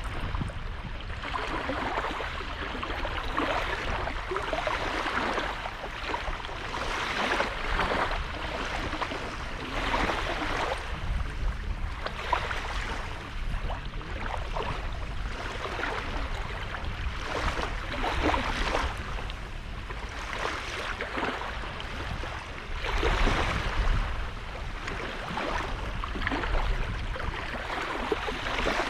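Small sea waves washing onto the shore, swelling and falling back every few seconds, over a steady low rumble of wind on the microphone.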